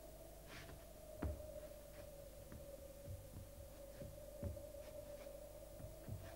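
A faint steady hum with soft low thumps at uneven intervals, the strongest about a second in.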